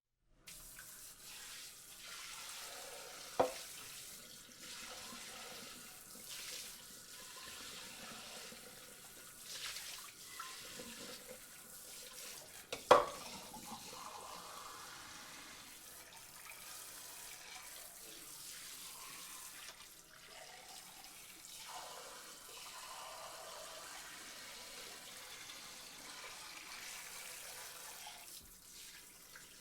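Washing dishes by hand at a sink under a running tap: a steady rush of water with dishes shifting, and two sharp clinks of dishware, the louder one about thirteen seconds in.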